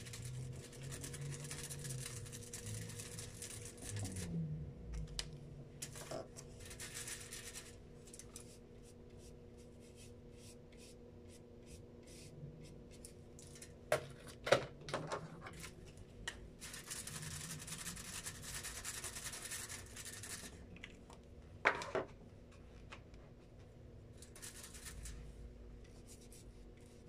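Marker tip scratching and rubbing across paper in stretches as stripes are coloured in, with a few sharp clicks about halfway through and again later. A faint steady hum lies underneath.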